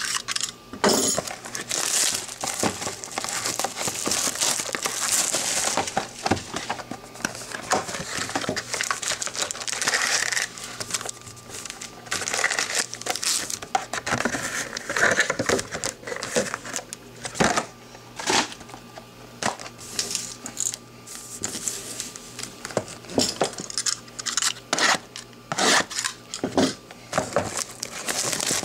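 Plastic and foil wrapping crinkling and rustling, with scattered clicks and taps, as a sealed trading-card hobby box is opened and its foil packs are taken out and handled.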